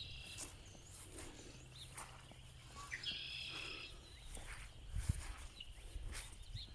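Small birds chirping, with one longer buzzy call about three seconds in, over a low rumble and a few soft thumps about five seconds in.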